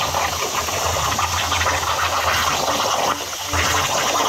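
Hypertherm Powermax65 plasma cutter on a CNC table cutting round holes in metal plate: a loud, steady hiss of the arc and cutting air over a low hum. It dips briefly a little after three seconds in, then picks back up.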